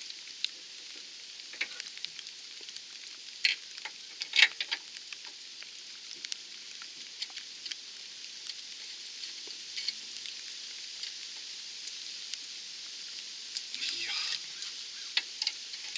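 Steady hiss of rain falling, with scattered sharp clicks and knocks, the loudest about four and a half seconds in.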